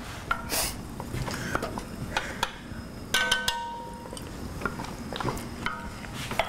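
Wooden spoon stirring thick spinach purée in an enamelled cast-iron pot, with light scraping and small knocks against the pot. A short pitched voice sound comes about three seconds in.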